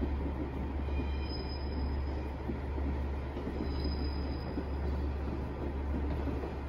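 Tabby cat purring steadily while being stroked, a continuous low rumble. Faint high-pitched tones come through twice, about a second in and again near four seconds.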